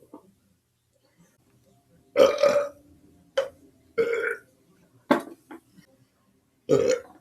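A person burping loudly: five separate belches over a few seconds, the first and longest about two seconds in.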